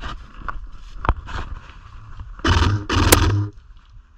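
Gear or clothing scraping against a body-worn camera's microphone: two brief, loud rustles about two and a half and three seconds in, the second with a sharp click, after a few scattered faint clicks.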